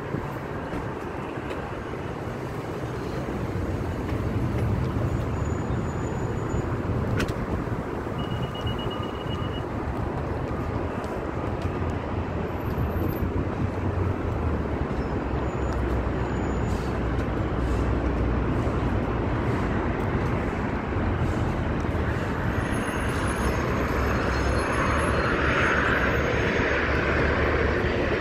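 United Boeing 757 on final approach, its jet engines growing steadily louder over street traffic noise. Near the end the engine noise swells with a rising hiss and a thin high whine as the airliner nears.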